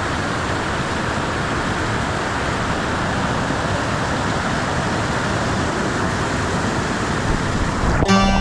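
Waterfall rushing steadily, an even roar of falling water pouring down a rock chute into its plunge pool. Music comes in near the end.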